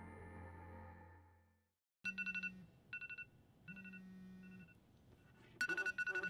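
Music fades out over the first second and a half. Then a smartphone rings: a rapid trilling ringtone in four short bursts, the last one the loudest, with a low buzz under two of them.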